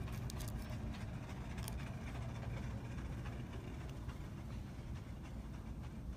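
Steady low hum of store background noise, with a few faint clicks in the first two seconds.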